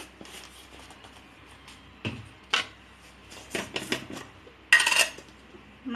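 Metal spoon clinking against steel cookware and spice containers: a knock about two seconds in, a few sharp clinks, then a louder half-second clatter near the end, as spice powder is spooned into the pot.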